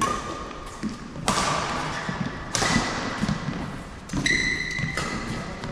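Badminton rally: four sharp racquet strikes on a shuttlecock, about one every second and a half, each ringing on in the echo of a large hall. Between the strikes, shoes squeak on the court floor, the longest squeak about four seconds in.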